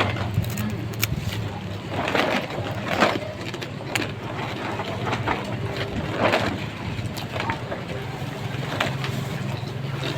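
An engine idling steadily with a low hum, with short, sharp crunching or clattering noises every second or two.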